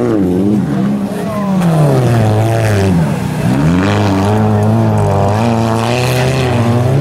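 Autocross racing cars' engines revving hard on a dirt track. The engine pitch falls and climbs again several times in the first half, then holds high and fairly steady for the last few seconds.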